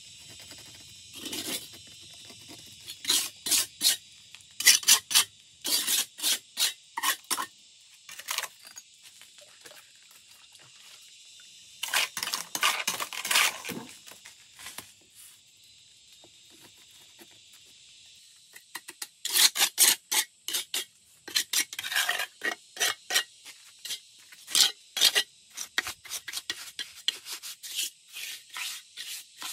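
Repeated scraping strokes of a hand tool working a hard material, about two strokes a second, in runs of several strokes with pauses between.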